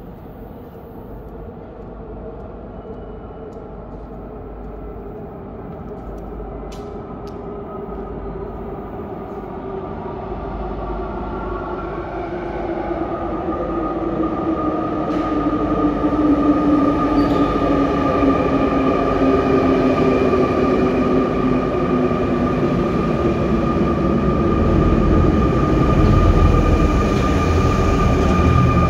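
SNCF Z 20500 double-deck RER C electric train running out of the tunnel and into an underground station, growing steadily louder. Whining tones slide down in pitch, and a steady higher whine joins about halfway through, over a low rail rumble.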